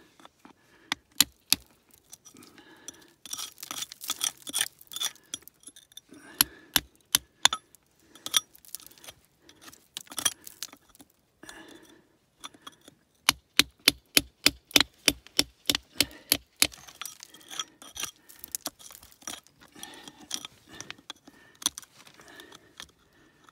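Hammer tapping a cold chisel into rock: sharp metallic clinks, some single and spaced, with a quick run of about four strikes a second about halfway through. Between strikes the chisel scrapes and grates on the rock, chipping around a zeolite vein.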